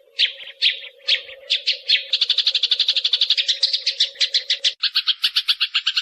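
Sparrows chirping: a handful of separate chirps, then from about two seconds in a fast, continuous run of chirps around ten a second. A steady low hum lies under the first part and stops about three-quarters of the way through, where a second, lower-pitched chirping joins in.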